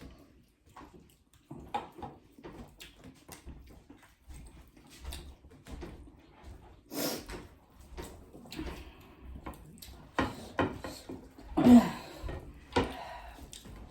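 Eating sounds: irregular small clicks and wet smacks of chewing and of food being handled off a plate, with a louder short burst near the end.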